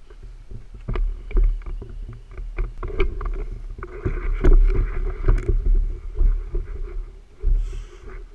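Handling noise from a camera mounted on an airsoft sniper rifle as it is carried on foot through dry grass: irregular knocks and rubbing from the rifle, footsteps and grass swishing, over a low rumble.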